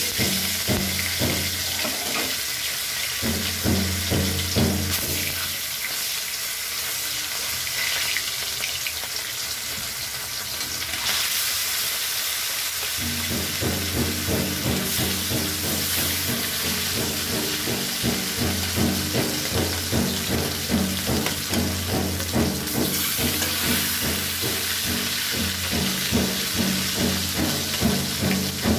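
Steaks of catla fish sizzling as they fry in hot oil in a karahi, more pieces going in over time. Background music with a regular beat plays under the sizzle, dropping out for several seconds near the middle.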